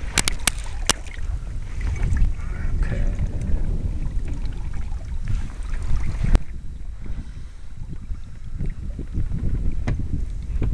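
A small fishing boat under way on open sea: a steady low rumble of wind on the microphone and water against the hull. There are three sharp clicks in the first second, another about six seconds in, and one near the end.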